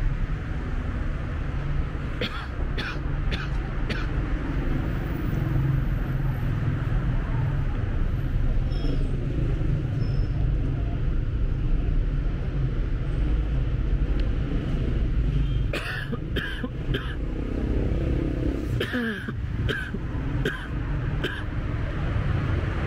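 City street traffic: a steady low rumble of road traffic, with short runs of sharp clicks about two a second, a couple of seconds in and again near the end.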